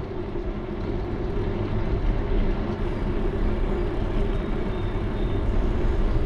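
Steady low rumble of wind and tyre noise on a GoPro's microphone while riding a bicycle over asphalt, growing a little louder about a second in.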